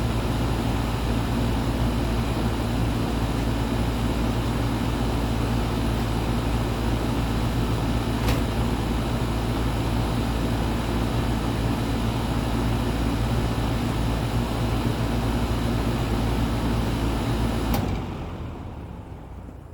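Goodman GSC13 central air conditioner's outdoor condensing unit running steadily, its compressor humming under the condenser fan, with a single click about eight seconds in. Near the end a sharp click marks the shutdown: the compressor stops and the fan winds down, fading away.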